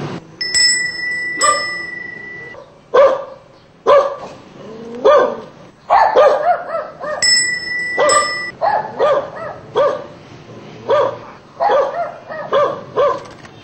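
A dog barking over and over in short barks, spaced about a second apart at first and coming faster in the second half. Twice, a steady high tone sounds along with it.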